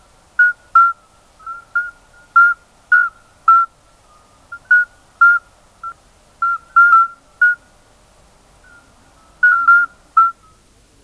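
Several male common midwife toads calling: short, flute-like single notes, each male on a slightly different pitch, about two a second and often answering one another in quick pairs, with a lull of about two seconds near the end.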